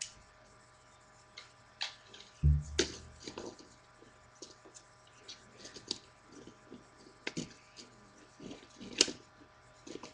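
Plastic clicks and knocks of a Transformers Starscream action figure being handled and posed, its limbs moved and set in place, with a dull thump about two and a half seconds in.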